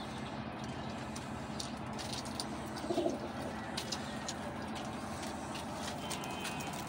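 Caged domestic pigeons cooing, with one clear coo about three seconds in, over steady background noise and a few light clicks.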